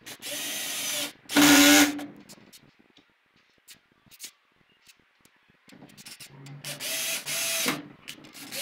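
Cordless drill-driver driving screws into melamine-faced particleboard in short runs of motor whine. There are two runs in the first two seconds, the second the louder, then a pause with a few small clicks, then more runs in the last few seconds.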